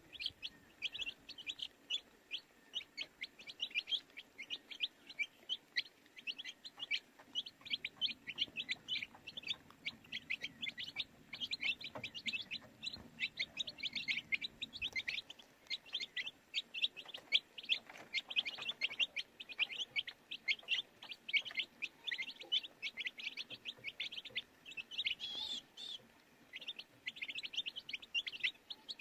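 Baby chicks peeping continuously: many short, high chirps overlapping, several a second.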